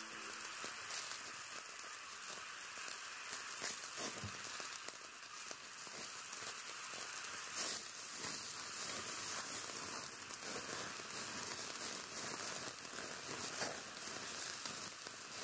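Chopped onions sizzling steadily in a pot on the stove, with a few brief knocks as chillies and ginger-garlic paste go in and a steel spoon stirs.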